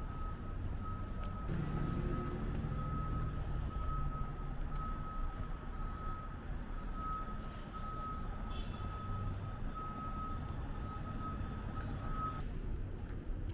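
A vehicle's reversing alarm beeping steadily, about two beeps a second, stopping shortly before the end, over the low rumble of a truck engine and street noise.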